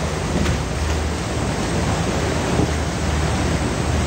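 Water rushing and splashing across a fishing boat's deck, over the steady low drone of the boat's engine.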